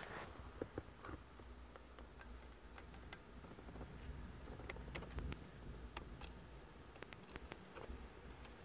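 Faint scattered clicks and taps as broken pieces of a worn-out shifter bushing are picked at and worked loose in the shifter housing, over a low steady rumble.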